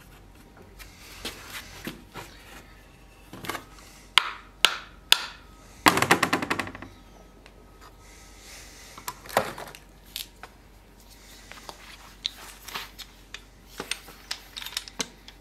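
Knife handle parts and small tools handled on a wooden workbench: scattered clicks and knocks, three sharp taps around four to five seconds in, and a fast rattle of clicks about six seconds in.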